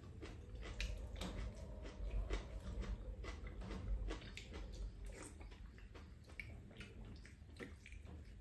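Eating sounds from two people at a table: chewing and wooden spoons and chopsticks clicking against ceramic bowls, many short, irregular clicks.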